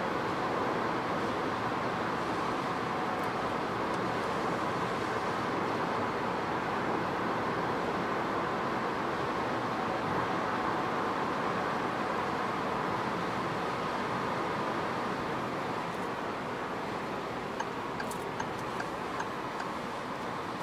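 Peugeot 208 1.2 PureTech at motorway speed, heard inside the cabin: a steady hiss of tyre and wind noise over the engine. It eases a little near the end as the car slows, with a few faint ticks.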